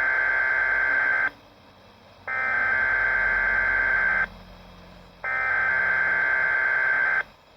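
Emergency alert SAME digital header for a Required Weekly Test, sent as bursts of shrill data tones. The first burst ends about a second in, then two more follow, each about two seconds long with a second's pause between.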